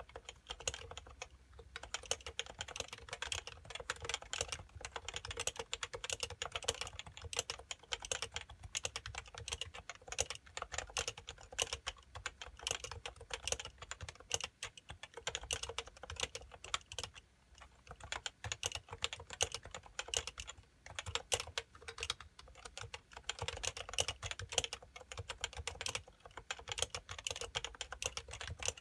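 Steady, fast typing on an HHKB Pro 2 keyboard with 45 g uniform-weight Topre electrostatic-capacitive switches: a dense run of soft key strokes, with a couple of short pauses about halfway through and again a little later.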